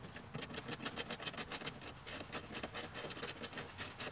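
Rapid, uneven clicking and small knocks as the new 6-1/2" speaker on its mounting adapter is handled and fitted into the door's speaker opening.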